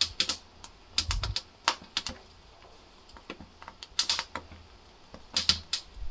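Sweet corn cob roasting directly over a gas burner flame, its kernels popping and crackling in irregular sharp cracks.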